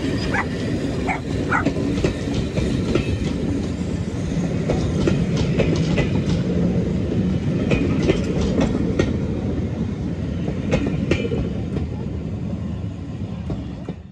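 Passenger coaches of a steam-hauled heritage train rolling past close by: a steady rumble with the wheels clicking over rail joints.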